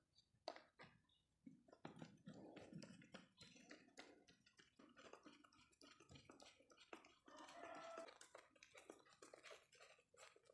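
Faint, irregular clicking and scraping of a long screwdriver turning screws into the plastic motor housing of an electric desk fan.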